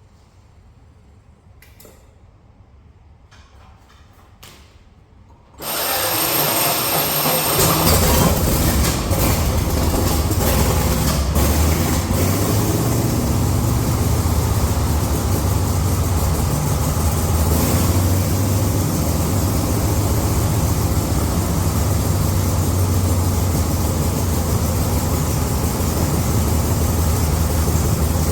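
An engine starts suddenly about six seconds in, after a few faint clicks, and then runs steadily with a low drone.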